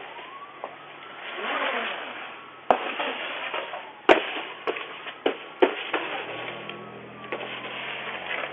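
Low-bandwidth doorbell-camera audio of street traffic passing, with about five sharp thumps or knocks between about three and six seconds in.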